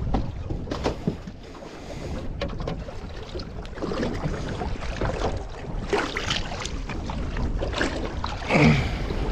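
Water splashing as a large skate thrashes at the surface beside a small boat and is hauled up by hand, over a steady rumble of wind on the microphone. The loudest burst comes near the end as the skate is lifted.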